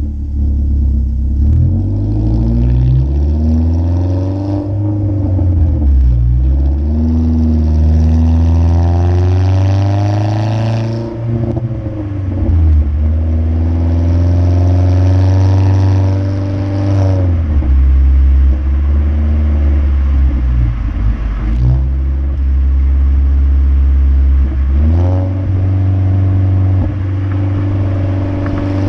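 2015 Ford Focus SE's 2.0-litre four-cylinder engine through a muffler-delete exhaust, pulling hard with a rising pitch and then dropping back, about five times over. Short crackles and pops sound from the exhaust when the throttle closes.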